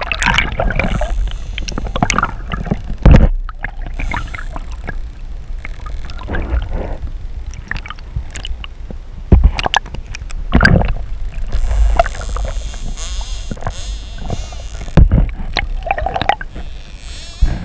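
Bottlenose dolphins heard underwater, whistling and clicking. Behind them runs a low water rumble with several loud thumps.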